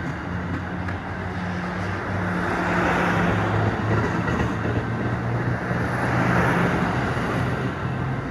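Diesel-hauled passenger train moving through the station: a steady low engine drone with wheel and rail noise that swells about two seconds in.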